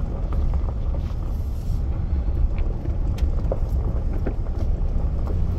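Steady low rumble inside the cab of a moving pickup truck: engine and tyres running on a gravel road, with scattered light ticks.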